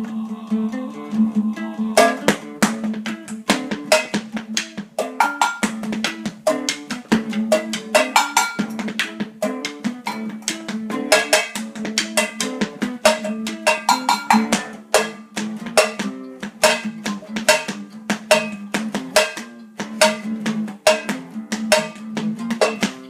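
An improvised drum kit of kitchen objects (a bin, a metal pan and a metal mug on a stand) struck with drumsticks in a quick, busy rhythm, over an out-of-tune classical guitar. The drumming comes in about two seconds in; before that only the guitar plays.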